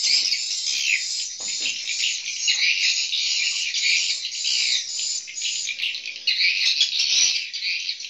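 Swiftlet calls: a dense, continuous chatter of high twittering chirps with no let-up.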